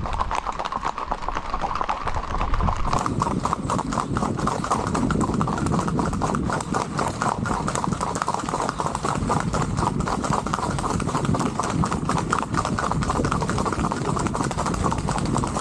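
Horses' hooves on a paved road: a fast, steady clatter of hoofbeats from two or more ridden horses moving at a quick gait.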